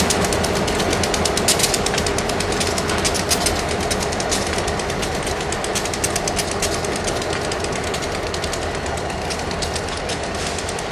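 Elgin, Joliet & Eastern diesel locomotives leading a freight train at slow speed: a steady diesel rumble under a rapid, dense clatter, getting gradually quieter.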